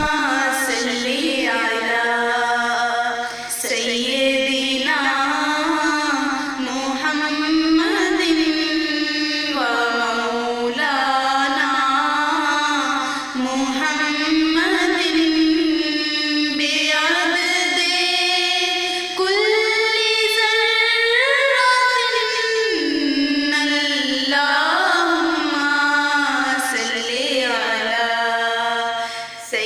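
A single voice singing an unaccompanied Islamic devotional song, a slow melody with long held notes that bend and glide in pitch.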